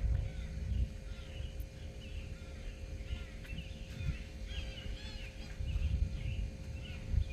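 Birds chirping in quick, repeated short calls, with scattered low thumps and rumble on the microphone.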